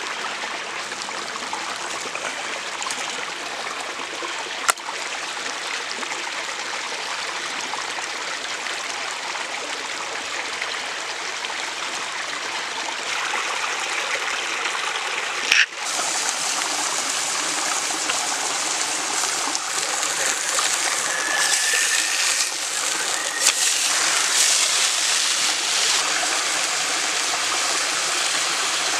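Steady rushing of flowing water. There is a click about five seconds in and another about halfway, after which the rushing turns louder and brighter.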